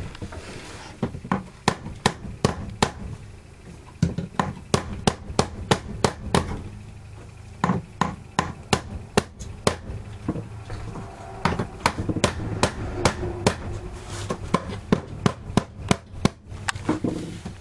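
Hammer striking wood again and again in an irregular series of sharp knocks, a few a second, with short pauses.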